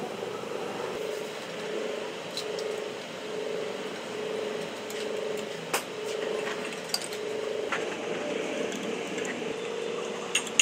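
A few sharp metal clicks as parts on a Suzuki 800cc engine's cylinder head and carburettor are handled by hand, over a steady hum that pulses about one and a half times a second.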